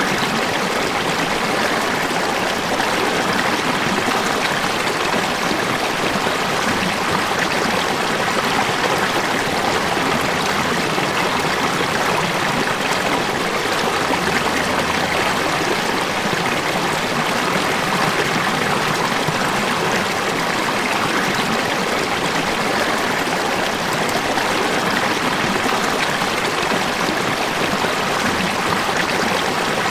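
Falling water in a steady, even rush that does not change.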